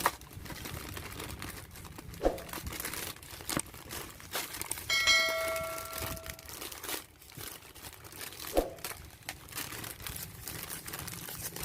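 Plastic and cardboard toy packaging crinkling and rustling as it is handled, with scattered clicks and knocks. About five seconds in, a steady ringing tone sounds for about a second and a half.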